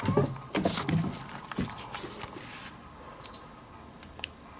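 A cat's collar charm jingling and its paws thudding on wooden stairs as it comes down, busiest in the first two and a half seconds, then mostly quiet with a few faint clicks.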